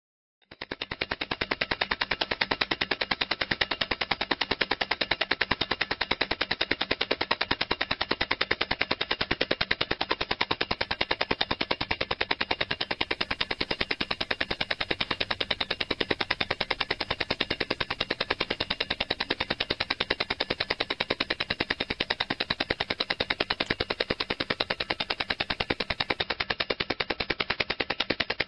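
Swiss Heuer Trackmaster mechanical stopwatch running, its movement ticking in a rapid, even tick-tick-tick, much faster than an ordinary watch. The ticking starts about half a second in.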